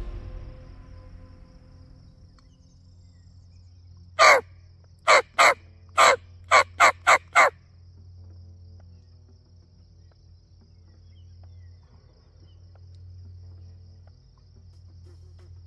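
A series of about eight loud turkey yelps, each note falling in pitch, coming faster toward the end over a faint steady hum.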